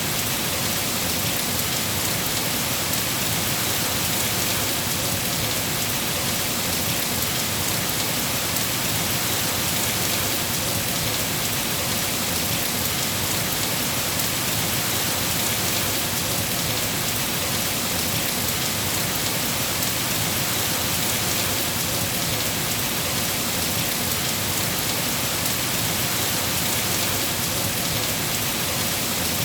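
Steady rain falling: an even, unbroken hiss of drops with no lulls or separate claps.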